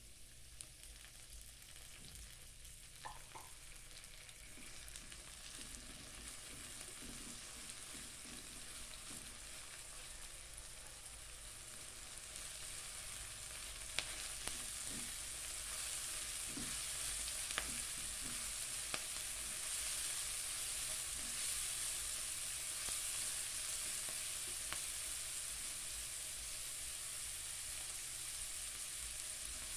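Chopped onion, garlic and ginger sizzling in oil in a non-stick pan, the sizzle growing steadily louder as the oil heats. About halfway through, a few sharp clicks come as a spatula stirs them.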